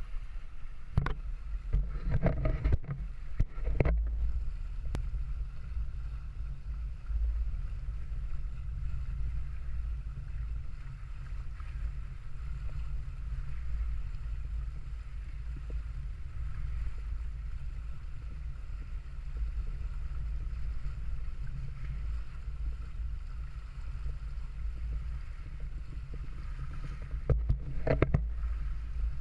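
Wind buffeting the microphone aboard a sailing yacht in a fresh breeze: a steady low rumble, with a cluster of sharp knocks in the first few seconds and again near the end.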